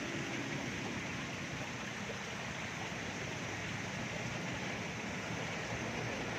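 Steady rush of flowing creek water, an even hiss with no breaks.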